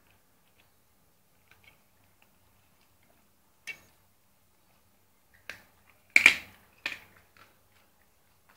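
Dog licking and nosing at a plate on the floor: a few scattered wet clicks and smacks, with a short louder cluster about six seconds in.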